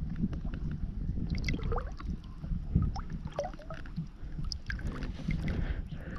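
Water sloshing and gurgling in small irregular splashes as a weak largemouth bass is moved back and forth in the water to push oxygen over its gills, over a steady low rumble.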